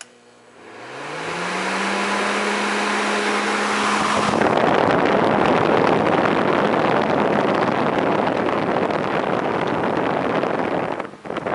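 Fan motors of a late-1980s Kenmore Quiet Comfort II console evaporative humidifier spinning up on high speed: a hum rises in pitch and settles about two seconds in, under a growing rush of air. After about four seconds the hum gives way to a loud, even rush of blown air that dips briefly near the end.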